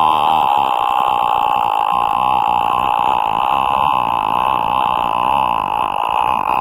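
A loud, steady high-pitched tone that wavers slightly in pitch.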